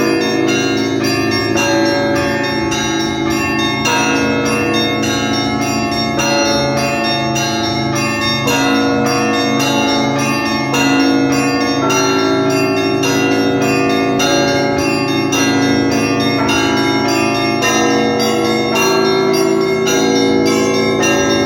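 Russian Orthodox church bells rung by a bell ringer in a festal peal for the liturgy. Small bells are struck quickly and without pause over the lasting ring of larger bells, and the pattern of notes shifts every couple of seconds.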